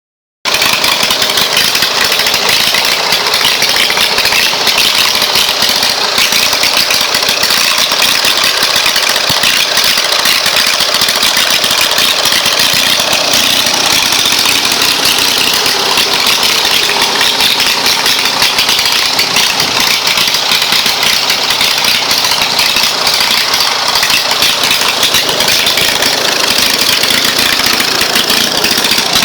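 18.5 hp Briggs and Stratton opposed-twin I/C engine, swapped onto a Craftsman push mower, idling steadily. It starts just as the sound begins and holds a loud, even note throughout.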